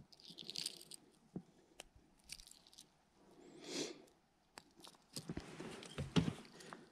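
Close handling noise of hands tying a lure onto fishing line: scattered small clicks and rustles, with a short swell of rustling a little before the middle and a few sharper knocks near the end.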